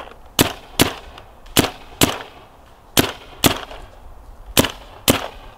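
Dye M3+ paintball marker firing eight sharp shots in four quick pairs, each pair about half a second apart. These are test shots over a chronograph to check the velocity just after it was adjusted.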